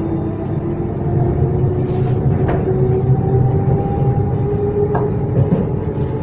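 Z2N double-deck electric commuter train, motor car Z 20892, running its electric traction equipment: a whine of several steady tones, one rising slowly in pitch, over a low rumble, with a few sharp clicks.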